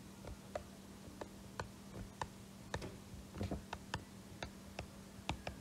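Stylus tip tapping on a tablet's glass screen while handwriting: a string of faint, irregularly spaced clicks.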